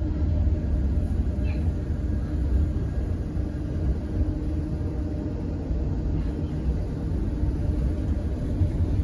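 Steady low rumble of a moving tram heard from inside the car, with a faint steady hum above it.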